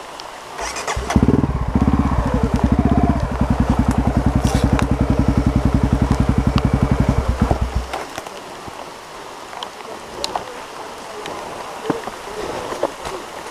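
Honda CRF 250F dirt bike's single-cylinder four-stroke engine running at low revs with rapid, even firing pulses. It comes in about a second in and cuts out about eight seconds in, leaving a faint hiss and scattered light clicks.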